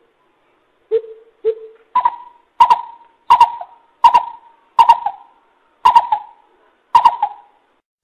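Greater coucal calling a series of hollow hooting notes: two lower hoots, then a run of about seven higher hoots roughly every 0.7 seconds, spacing out slightly near the end.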